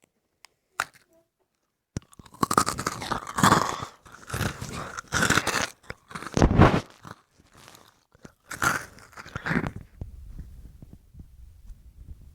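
Close-up crunching and chewing of crunchy food right at the microphone, in several irregular bouts, tailing off into a faint low rumble near the end.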